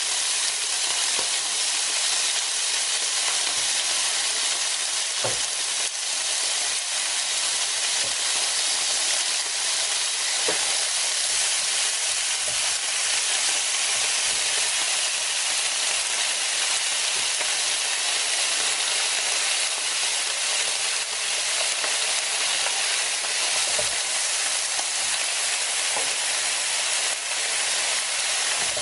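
Pork pieces sizzling steadily on a round tabletop Korean barbecue grill plate, an even hiss with a few faint crackles.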